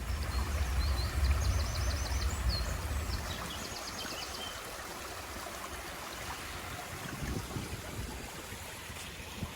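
Steady rush of flowing water. A small songbird sings short high trilled phrases in the first few seconds, while wind buffets the microphone with a low rumble.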